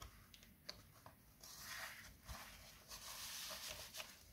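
A vinyl LP being slid into its paper sleeve and cardboard jacket: a few light handling clicks, then a faint papery rubbing hiss from about a second and a half in, lasting a couple of seconds.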